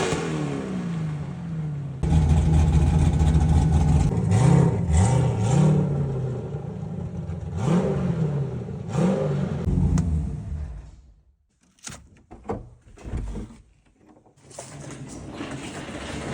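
A race car engine that has stood abandoned, running and blipped several times in quick rises and falls of revs, then cutting out about ten seconds in. A few knocks follow, and a steady hiss rises near the end.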